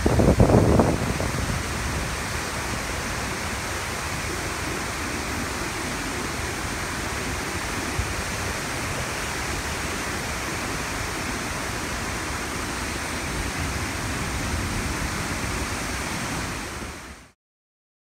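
Rushing water of fast-flowing river rapids, a steady, even rush. A gust of wind buffets the microphone in the first second, and the sound cuts off suddenly near the end.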